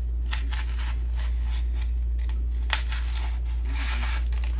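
Short, irregular clicks and rustles of artificial flower picks and plastic stems being handled and pushed into a vase, over a steady low hum.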